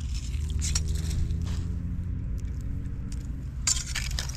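Plastic ice scoop scooping slush out of an ice-fishing hole, with a scrape about a second in and a sharper knock near the end as it is laid down on the ice. Under it runs a steady low rumble with a distant engine hum.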